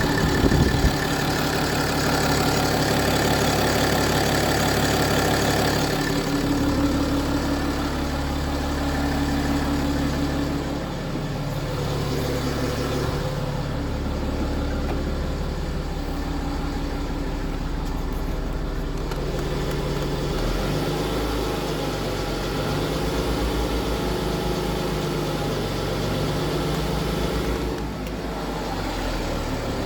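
BMW N57 straight-six diesel engine running steadily, with the noise the owner takes for a worn or stretched timing chain.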